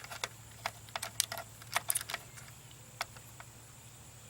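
About a dozen light, irregular clicks and taps, bunched in the first two seconds with a last one about three seconds in: small wire connectors and parts being handled and fitted at the terminals of a trolling motor's speed switch.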